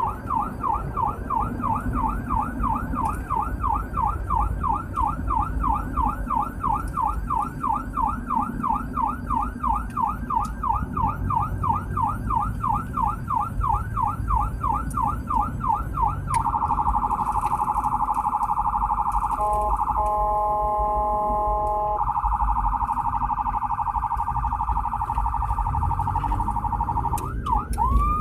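Emergency vehicle's electronic siren heard from inside the cab, running in yelp with the pitch sweeping up and down about three times a second. About 16 seconds in it switches to a much faster warble, and a horn sounds over it for about two seconds around the 20-second mark. Near the end the siren dips and starts rising into a slow wail.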